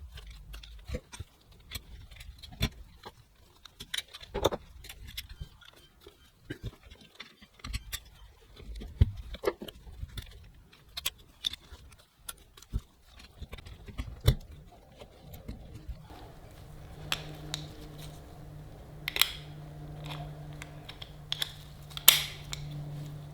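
Small metal parts of a Yale night latch clicking and tapping irregularly as they are wiggled by hand into alignment. A low steady hum comes in about two-thirds of the way through.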